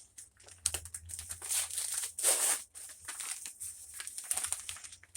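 Wrapping paper being torn open and crinkled by hand around a book, in a run of uneven rips and rustles with the loudest tear a little past two seconds in.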